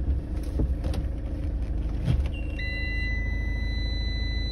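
Van engine idling with a steady low rumble and a few clunks as the gear lever is moved into reverse. About two and a half seconds in, a steady high electronic warning tone comes on and holds, signalling that reverse is engaged.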